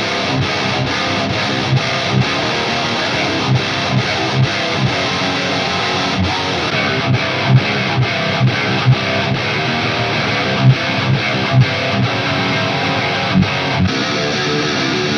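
Heavy distorted rhythm riff with low chugging notes on an electric guitar (ESP LTD NW-44 with a Bare Knuckle Aftermath pickup) played alone, with no backing, through high-gain tube amp heads. The tone changes about seven seconds in and again near the end as the same riff moves from a Peavey Invective 120 to a Randall Diavlo 100 and then to a Marshall JVM410H.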